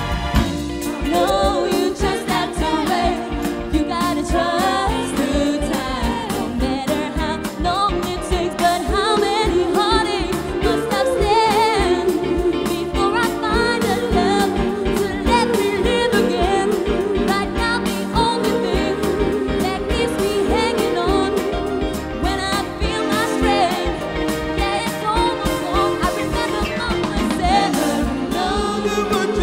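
Soul music played by a band with drums, with several voices singing together.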